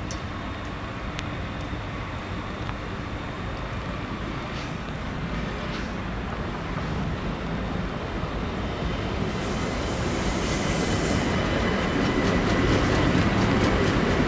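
ÖBB Railjet Xpress train pulling out of the station, its running noise growing steadily louder as it gathers speed. About nine seconds in there is a burst of hiss lasting about two seconds, and faint regular clacks of wheels over rail joints near the end.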